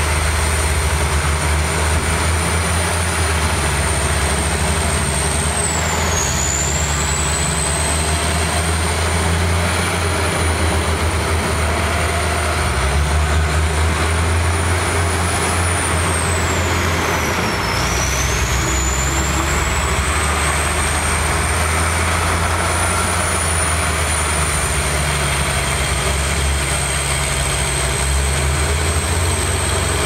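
Diesel engine of a Shantui crawler bulldozer running under load as it pushes dirt: a steady low drone with a high whine that dips in pitch and climbs back twice, about six seconds in and again at about seventeen seconds.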